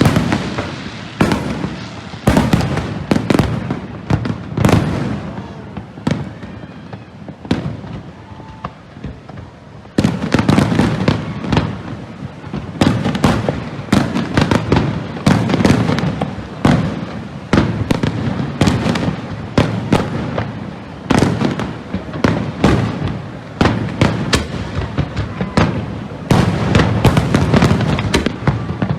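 Fireworks display: aerial shells bursting in a rapid, irregular string of bangs with crackling between them, thinning out for a few seconds and then resuming in a dense barrage about ten seconds in.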